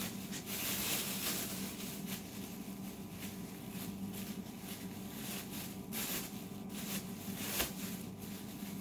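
A thin plastic bag rustling and crinkling in irregular bursts as it is handled and shaken open, with one sharp click near the end, over a steady low hum.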